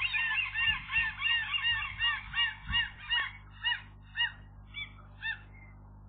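Gull calling a rapid series of arched, yelping notes, about three a second, slowing to single, spaced-out calls after about three seconds.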